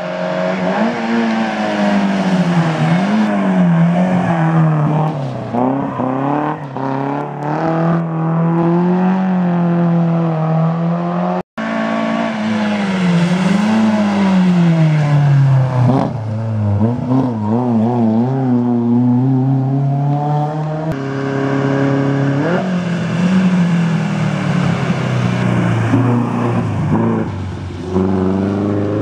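Rally car engines revving hard on a sprint stage, the pitch climbing and dropping again and again through gear changes, throttle lifts and braking for corners, as one car after another comes through. A momentary break in the sound partway through.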